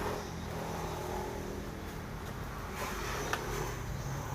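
Steady low hum of an engine running in the background, with a few faint clicks about two to three seconds in.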